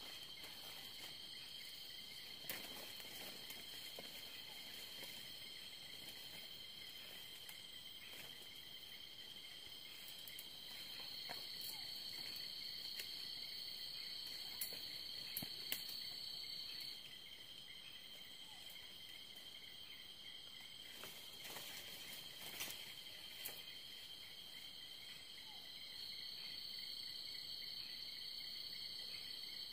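Night insects trilling steadily in several high-pitched continuous tones. One higher trill joins about ten seconds in, stops some seven seconds later and starts again near the end, and there are a few sharp clicks.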